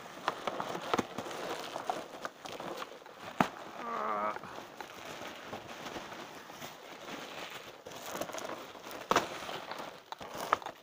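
Bubble wrap and a plastic bag crinkling and rustling as they are torn open by hand, with a few sharp snaps, the loudest about three and a half seconds in and another near nine seconds. A short wavering whine about four seconds in.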